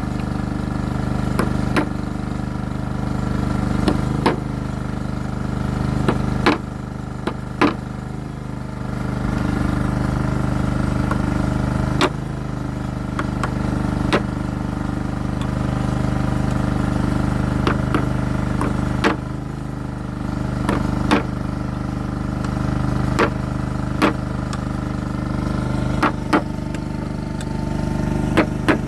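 Irregular sharp knocks as the Cummins 6BT's rear crankshaft seal is tapped into its housing to seat it, roughly one every second or two. A steady low engine-like hum runs underneath.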